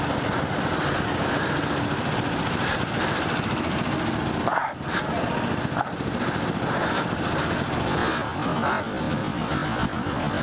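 Several go-kart engines running together, a steady, dense mechanical noise that dips briefly about halfway through.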